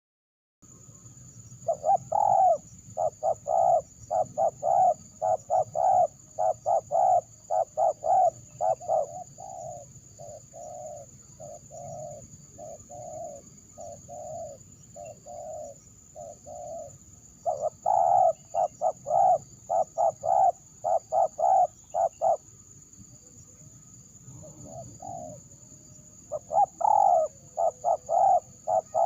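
Spotted dove (terkukur) cooing in long runs of rapid, evenly spaced coos, about two a second, with short pauses between the runs. A faint steady high whine runs underneath.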